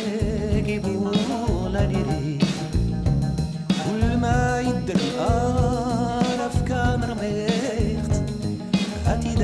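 Pop song with drums and a wavering sung vocal line.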